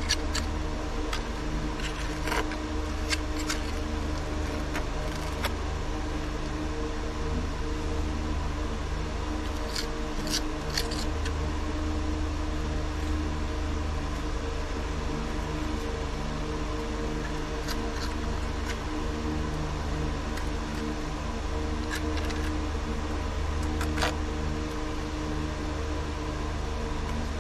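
Masonry trowels scraping and tapping as mortar is pressed into concrete-block joints: scattered short scrapes and clicks. Under them runs a steady mechanical hum.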